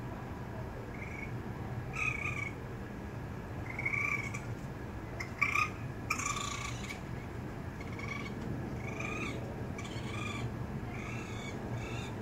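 Raccoon kits crying: short, high-pitched calls repeated about once a second, some in quick pairs. These are the calls of young left behind in the nest after their mother has gone out, wanting to follow her.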